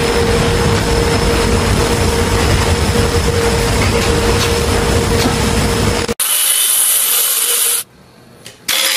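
Steady, rasping workshop machine noise with a constant hum, loud. It cuts off suddenly about six seconds in; a short high hiss follows, then a brief near-quiet, and noise returns at the very end.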